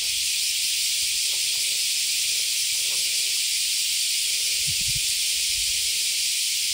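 A steady, loud high hiss, with a couple of faint low knocks a little before the end.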